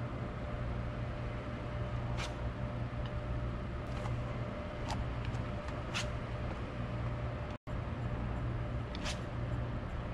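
Steady low background rumble with a faint constant hum, broken by a few sharp, irregular clicks; the sound drops out for an instant a little past the middle.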